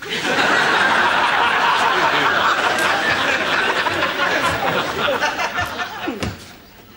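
Studio audience laughing loudly, starting at once and dying away about six seconds in.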